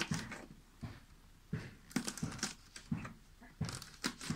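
Knife chopping green and red chili peppers on a wooden board: a string of short knocks of the blade striking the wood, about ten at uneven spacing.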